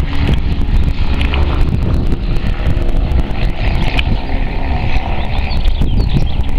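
Beechcraft 76 Duchess light twin flying low overhead, its two piston engines and propellers droning steadily, with wind buffeting the microphone.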